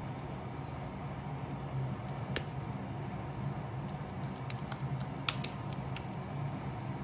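Hands squishing and patting raw ground meat while shaping a hamburg steak patty, with a few sharp clicks and a steady low hum underneath.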